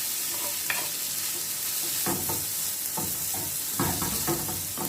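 Marinated paneer cubes shallow-frying in butter on a tava, sizzling steadily, with a few scrapes and taps of a stirring utensil on the pan as the pieces are turned.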